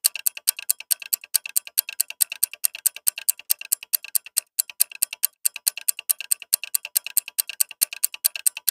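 A ticking-clock sound effect used as a quiz countdown timer: fast, even ticks, several a second, each with a slight ring.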